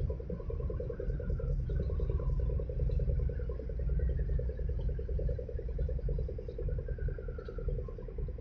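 Marine diesel engines running: a steady low rumble with a fast, even throb.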